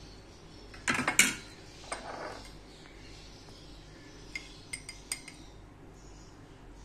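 Steel spoon clinking and scraping against glass bowls: a cluster of sharp clinks about a second in, another near two seconds, then a few lighter taps a little after four seconds.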